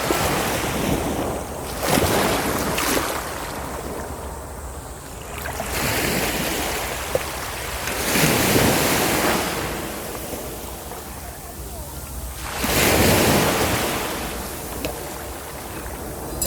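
Sea waves breaking on a beach, each swelling to a loud surge about every five seconds with a lower wash in between.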